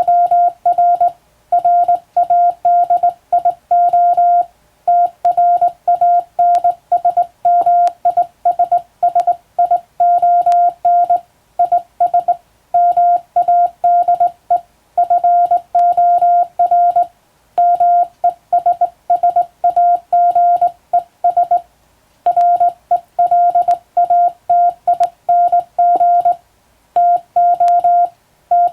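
Morse code sent by hand on a telegraph key: a single steady tone keyed on and off in dots and dashes, in letter groups separated by short pauses, with faint clicks.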